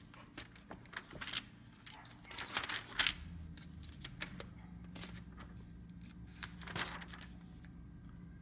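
Pages of a large paperback National Electrical Code Handbook being flipped and turned by hand: a series of short papery swishes and rustles. A faint steady low hum sets in about three seconds in.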